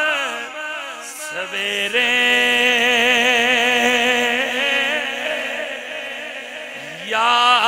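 A man singing Punjabi verse unaccompanied into a microphone, holding long notes with a wavering vibrato. The voice falls quieter about five seconds in, then swells again with a rising glide near the end.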